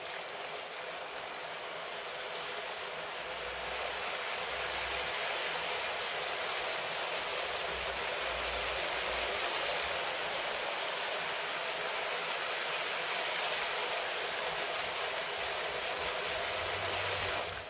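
Motorised Lego City 60197 passenger train running on plastic track: a steady, hiss-like rattle of plastic wheels over the rails together with the electric motor's whir. It grows a little louder over the first few seconds and cuts off suddenly at the end.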